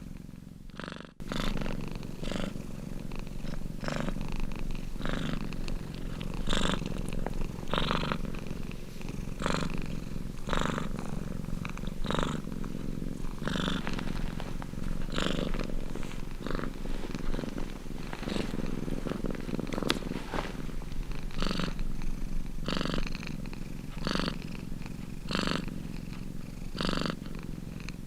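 Domestic cat purring, a steady rumbling purr that swells with each breath, about one pulse every second and a bit. A brief dip about a second in ends in an abrupt cut back to full purring.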